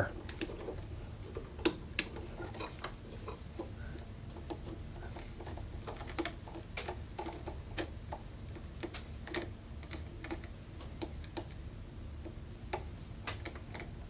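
Small irregular metallic clicks and taps as a screwdriver tightens a wire under a three-way switch's terminal screw, the switch and wire knocking against the metal electrical box. Two sharper clicks come about two seconds in.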